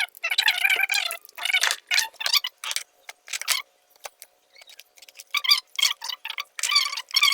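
Background music: a pitched melody with clicky ticking beats, dropping out briefly in the middle before returning.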